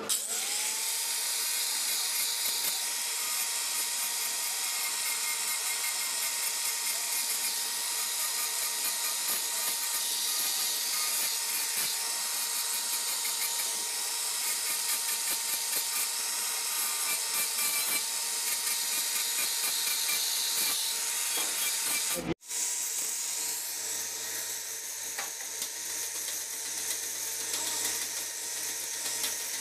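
Angle grinder with a thin cutting disc winding up to speed, then cutting steadily along the seam of a metal radiator tank, with a constant high whine over a harsh cutting hiss. The sound drops out for a moment about two-thirds of the way through, then carries on.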